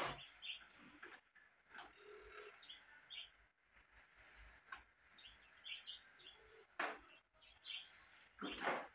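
Faint birds chirping, with short high calls scattered throughout, a few light clicks, and a louder brief noise near the end.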